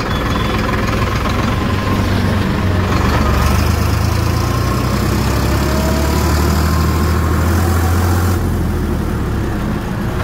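Farm tractor's diesel engine running as the tractor drives along the road, heard up close from the driver's seat. The low engine note grows louder about three seconds in and softens again near the end.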